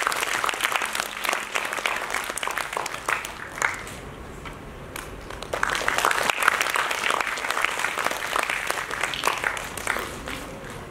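Audience applauding, thinning out about four seconds in and building again a second and a half later.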